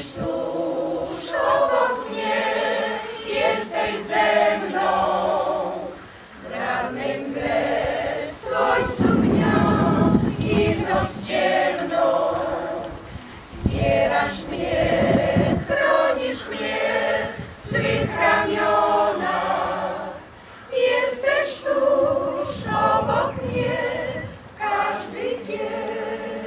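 Mixed amateur choir of older women and men singing a cappella in sustained phrases, with short pauses between phrases.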